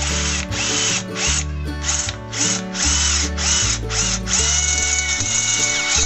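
Cordless drill boring a hole into a steel cabinet frame tube with a twist bit, run in a series of short trigger bursts with the motor pitch rising and falling each time. About two-thirds of the way through it settles into one longer steady run.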